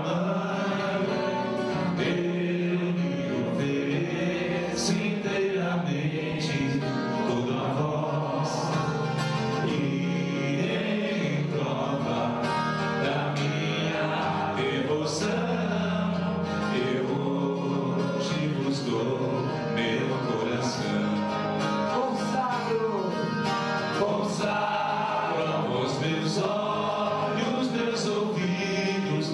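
A devotional hymn sung with guitar accompaniment, the singing carrying on without a break.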